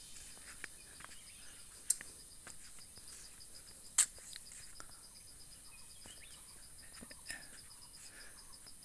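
Forest insects chirring: a steady high buzz with a fast pulsing trill, broken by a few sharp clicks, the loudest about two seconds and four seconds in.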